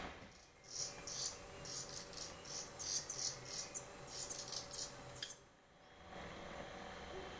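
Black redstart nestlings begging with a rapid run of short, very high-pitched calls, about three a second, while an adult feeds them at the nest. The calls stop about five seconds in.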